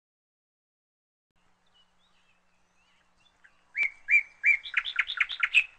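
Silence for nearly four seconds, then a bird singing: a run of about ten short, sharp notes that come faster and faster toward the end.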